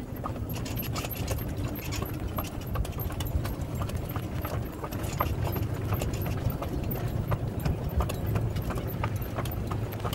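Horse's hooves clip-clopping in an irregular run of clicks as the horse is led alongside a moving golf cart, over a steady low hum.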